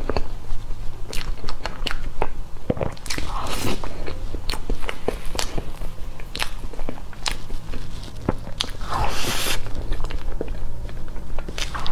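Close-miked eating of soft cream cake from a spoon: wet mouth smacks and chewing with many small clicks, and two longer smacking bursts about three and nine seconds in. A steady low hum runs underneath.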